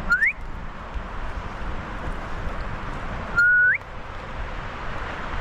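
A person whistles twice over a steady background hiss. First comes a short upward-sliding whistle, then about three seconds later a louder one that holds a note and then sweeps up sharply. The whistles are aimed at an unseen animal to see whether it answers.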